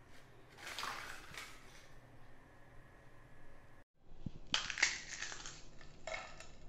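Crisp fried pani puri (golgappa) shells crunching and crackling as they are crushed in the hand, a sign of how crisp they are. A shorter crackle comes about a second in, and a louder run of sharp cracks comes in the second half.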